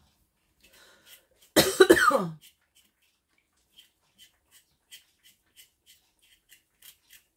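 A person coughs once, harshly, about two seconds in, with a falling voiced tail. Then a paring knife clicks faintly against a potato, about three times a second, as the potato is peeled by hand.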